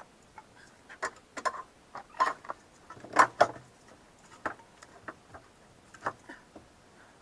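Irregular clicks and knocks of hand tools and parts being handled during work on a car's front wheel hub, with the loudest clatter about three seconds in.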